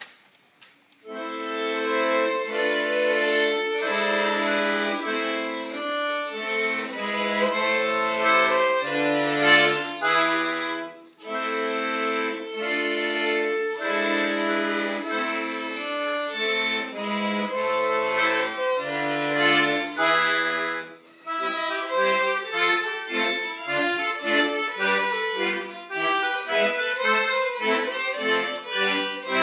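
Accordion, violin and recorder playing a Baroque piece together, starting about a second in, with brief breaks between phrases near 11 s and 21 s. The notes come quicker in the last third.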